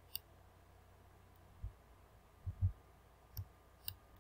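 Faint computer mouse clicks, a few of them, with several soft low thumps, over quiet room tone.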